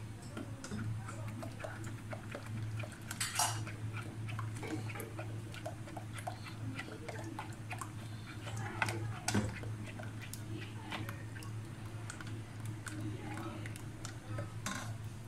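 A wooden spoon stirring thick mango pulp and sugar syrup as it simmers in a metal saucepan, giving irregular small clicks, scrapes and soft pops, over a steady low hum.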